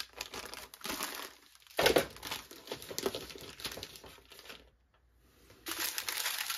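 Plastic packaging crinkling and rustling as a bagged pack of diamond-painting drill packets is handled and unwrapped. The rustling is irregular, loudest about two seconds in, and stops briefly before picking up again near the end.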